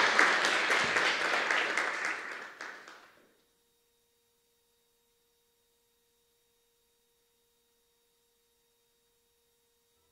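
Audience applauding at the end of a talk, fading out about three seconds in, followed by near silence with a faint steady tone.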